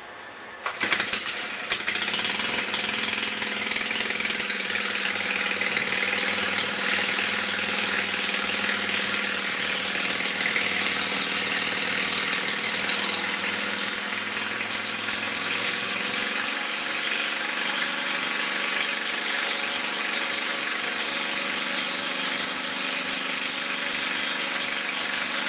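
Minibike engine catching with a few uneven bursts about a second in, then running steadily at idle.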